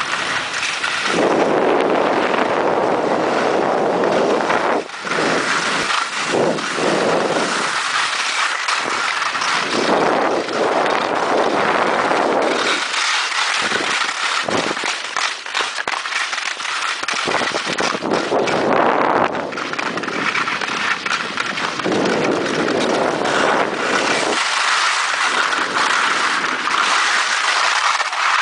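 Continuous scraping and rushing of a sled sliding fast over packed snow and ice, with wind buffeting the microphone in gusts.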